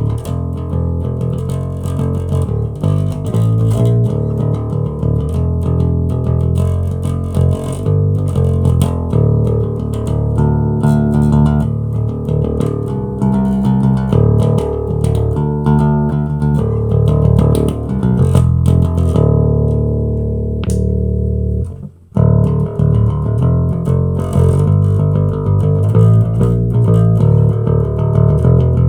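Harley Benton TB-70VS Thunderbird-style electric bass guitar, modded and tuned to D, being played: a continuous run of low plucked notes and riffs. About three-quarters of the way through the playing stops for a moment, then starts again.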